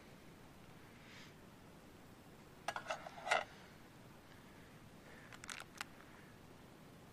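Handling noise: two brief clusters of sharp clicks and taps, the louder about three seconds in and a smaller one near the end, over a quiet steady background.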